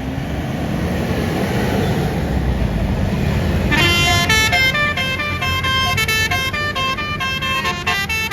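A bus's engine running loudly as it passes. About four seconds in, a Basuri multi-tone telolet horn starts playing a quick melody of stepped notes, several tones sounding together.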